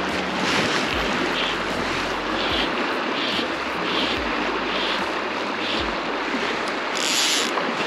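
Swollen river after a spate rushing steadily past the bank, with soft swishes coming about every three-quarters of a second and a few low bumps on the microphone. A brighter hiss rises near the end.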